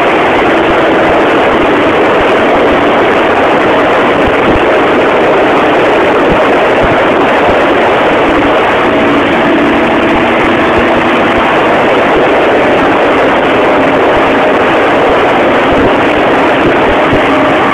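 Single-cylinder four-stroke engine of a Honda TRX450R quad running at fairly steady revs through a long wheelie, almost buried under a loud, steady rushing noise.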